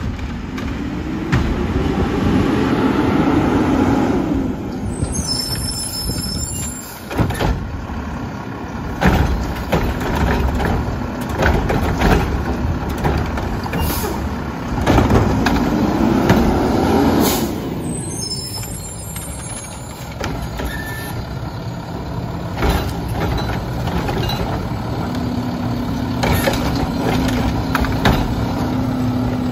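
Front-loader garbage truck with a Curotto Can arm working a curbside cart: the diesel engine revs up twice with a rising hydraulic whine, air brakes hiss twice, and the cart and can knock against the arm. A steady hum sets in near the end.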